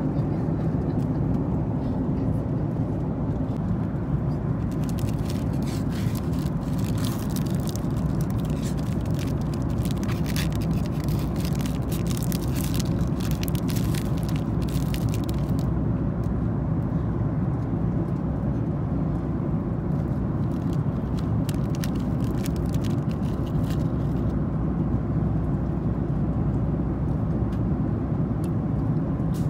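Steady airliner cabin noise of a Boeing 737-8 MAX in flight, with a plastic snack wrapper crinkling as it is torn open and the cookies pulled out, from about five seconds in to about halfway, then again more briefly later on.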